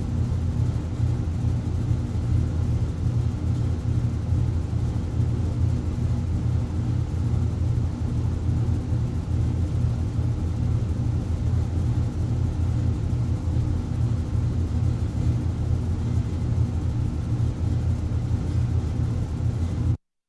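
A furnace running: a steady low rumble with a deep hum that cuts off abruptly near the end.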